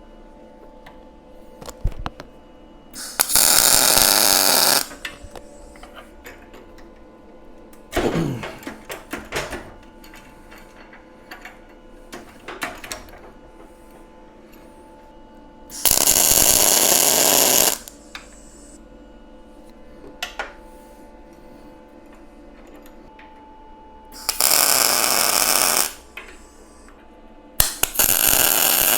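MIG welder laying four short welds on the steel floor sheet, each a steady crackle of about one and a half to two seconds that starts and stops abruptly. Between the welds there are metal clanks and clicks from clamps and steel parts being handled.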